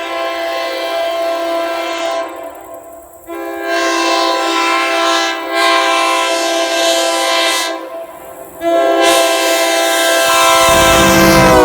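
Nathan Airchime K3LAR2 raised-letter three-chime air horn sounding its chord in three blasts. The first ends about two seconds in, the second runs from about three to eight seconds, and the third starts about nine seconds in, its pitch sagging slightly near the end.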